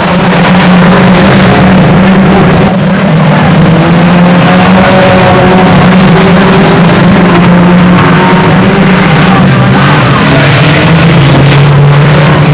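Engines of a pack of 2-litre banger race cars running together, a loud, steady drone that wavers slowly up and down in pitch.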